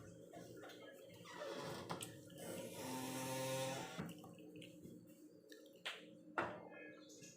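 Close-miked, wet chewing and mouth sounds of someone eating French fries, with a louder stretch about halfway through and two sharp clicks near the end.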